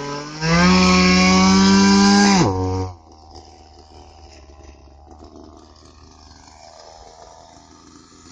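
Chainsaw running at full throttle in a cut. It eases off briefly at the start, then revs back up, and about two and a half seconds in its pitch drops sharply as the engine dies away. After that there is only much quieter background noise.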